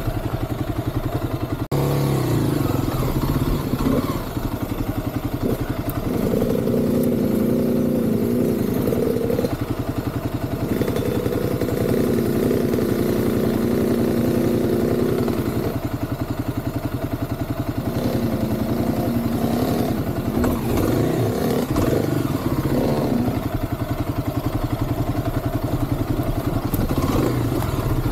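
Kawasaki dirt bike engine running at low revs at trail-walking speed, picking up in several spells of a few seconds and settling back in between.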